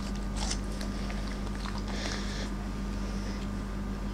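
A Siberian husky biting and chewing a pear: faint wet crunches and slurping licks, the loudest crunch about two seconds in, over a steady low hum.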